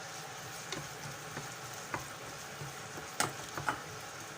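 Diced carrots and onions sizzling in hot oil in a pan, with a few sharp clicks of the stirring utensil against the pan, the loudest about three seconds in.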